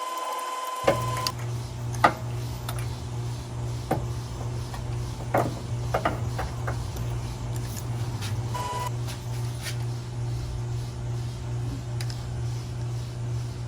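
Scattered light metallic clicks and taps as a spark plug and its socket extension are worked out of the engine by hand, over a steady low hum. A short steady beep tone sounds for about the first second and again briefly about nine seconds in.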